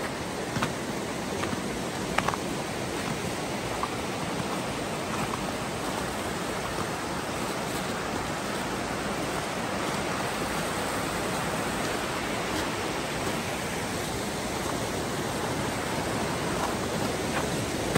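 Fast, shallow creek rushing over rocks and riffles as a steady, even roar of water, with a couple of light knocks in the first few seconds.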